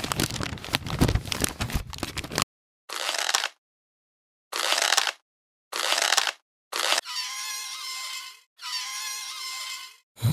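A string of edited-in sound effects, each cut off abruptly with dead silence between: a dense crackling for the first two and a half seconds, then four short noisy bursts, then two longer sounds each carrying a steady whistle-like tone.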